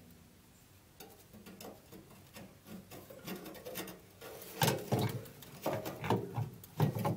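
Light clicks and scraping of metal parts being handled at the fuel tank's sender opening, with a few louder knocks about five to seven seconds in.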